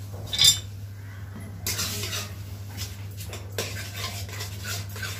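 A spatula scraping and clinking against a metal kadai as eggs are stirred and fried in it, with a sharp clink about half a second in and then repeated short scrapes.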